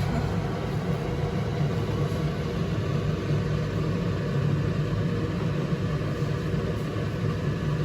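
Steady low rumble of a lit kitchen stove heating a pot of kulekhara leaves for juice.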